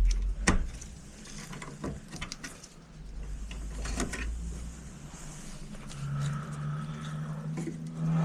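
Clicks, knocks and plastic handling noise as RAM memory sticks are pushed into the slots of a desktop computer's motherboard, with a sharp click about half a second in and others near two and four seconds. A low steady hum comes in about six seconds in.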